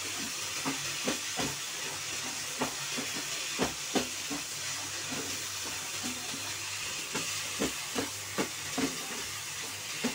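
Grated papaya and cream sizzling in a hot nonstick kadhai, with frequent irregular knocks and scrapes of a spatula stirring it against the pan.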